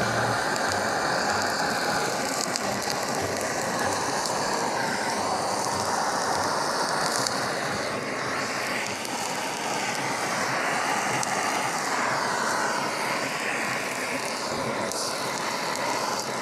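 Handheld gas blowtorch burning with a steady, rushing hiss as its flame is played over raw chicken pieces, shutting off suddenly near the end.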